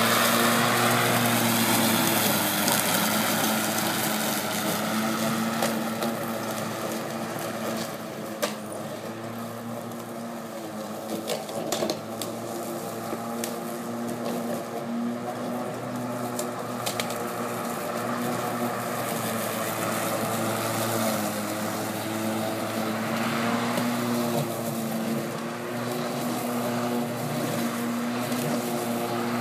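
Corded electric lawn mower running at full speed while cutting grass: a steady motor-and-blade hum whose pitch wavers slightly, with a couple of sharp clicks about eight and twelve seconds in.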